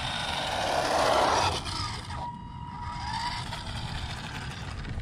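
Redcat Blackout XBE 1/10-scale RC buggy on a full-speed run on asphalt: its brushed electric motor and drivetrain whine along with tyre hiss. The sound is loudest about a second in, then eases off suddenly, and a thinner steady whine carries on as the buggy slows.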